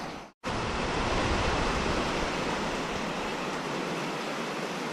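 Steady rushing noise of a storm, wind and rain, with a low rumble of wind on the microphone; it starts abruptly after a split-second dropout near the beginning.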